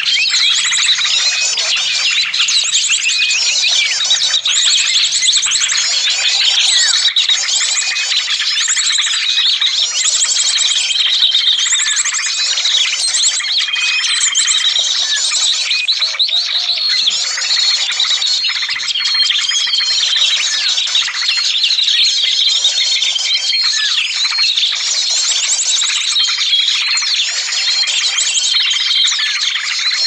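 Small-bird lure call (suara pikat) of many small songbirds, prinias and white-eyes among them, calling at once. It is a dense, unbroken chatter of fast chirps and trills, with short flat whistled notes recurring every few seconds.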